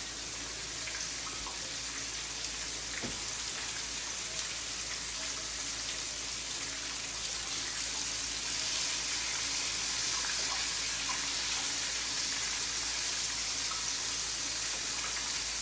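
Tilapia fillets pan-frying in hot oil in a skillet: a steady sizzle with scattered small pops and crackles.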